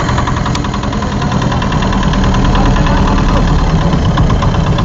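Boat engine running steadily with a fast, even knocking beat.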